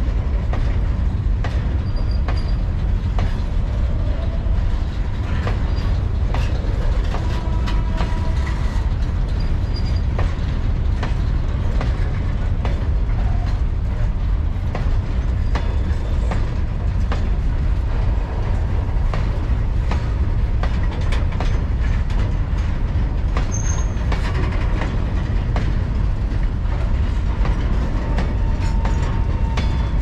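Covered freight wagons rolling past at close range: a steady rumble with wheels clattering over the rail joints, and a few brief, faint wheel squeals.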